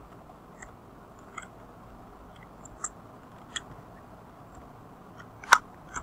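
Computer keys tapped one at a time at an uneven pace, about eight separate clicks, with one louder click about five and a half seconds in. A faint steady hiss lies underneath.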